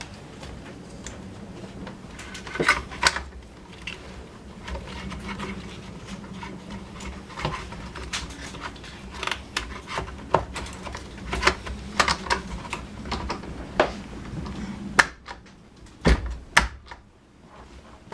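Irregular clicks, taps and light clatter of small parts and hand tools being handled while a Honda UMK422 string trimmer is put back together. A steady low hum runs underneath and cuts off about fifteen seconds in.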